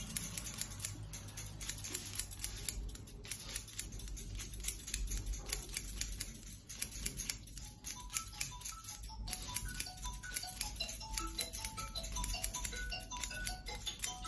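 Barber's scissors snipping hair in quick repeated cuts, several snips a second. A light melody of short notes comes in about halfway through.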